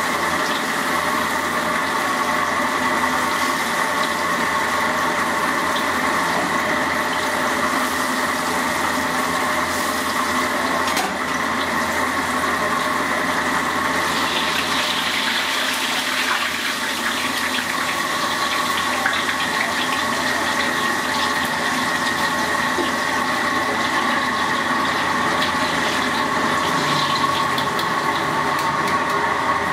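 Mantis shrimp deep-frying in a wok of hot oil: a steady sizzle and bubbling that turns louder and more crackly about halfway through, over a steady high hum.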